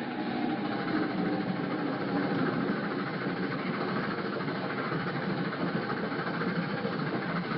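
Steady running rumble of a passenger train in motion, heard from inside the carriage.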